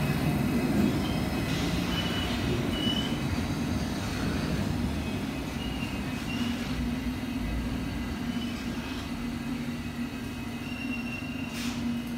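London Underground S Stock train running slowly along the platform track in a subway station: a steady low rumble with brief high-pitched wheel squeals, and a steady hum that sets in about halfway through.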